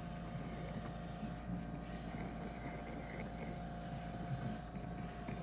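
Steady machine hum with a constant tone, unchanging throughout.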